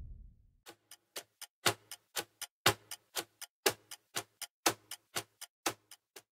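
Ticking sound effect: sharp, evenly spaced ticks about four a second, every fourth one louder, starting just under a second in.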